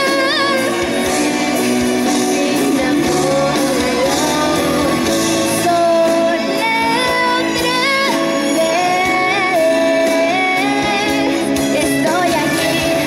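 Pop ballad: a woman singing long held notes over instrumental accompaniment played through stage loudspeakers.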